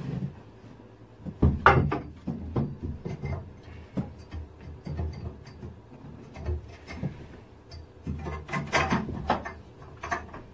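Irregular knocks, clicks and light clanks of metal electrical conduit and its fittings being handled and fitted at a junction box, busiest about a second and a half in and again near the end.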